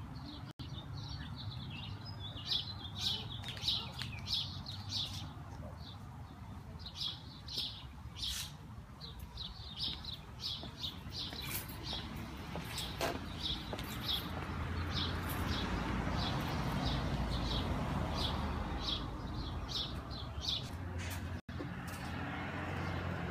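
Small birds chirping in quick, short notes, over and over, against a low background rumble that grows louder about halfway through.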